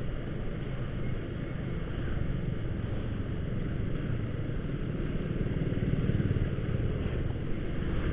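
A motorcycle riding along a street, heard from its own handlebars: a steady engine and road rumble with no change in pace.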